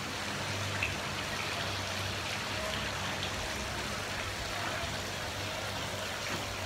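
Steady outdoor background noise: an even hiss with a low hum underneath, with no single clear source standing out.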